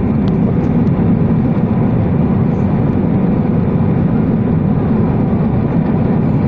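Loud, steady rumble inside a jet airliner's cabin on the landing roll, engine and runway noise coming through the fuselage.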